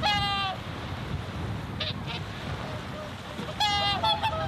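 Whooper swans calling: a loud honking call right at the start and another about three and a half seconds in, with shorter calls around two seconds. Steady noise of wind and lake water runs underneath.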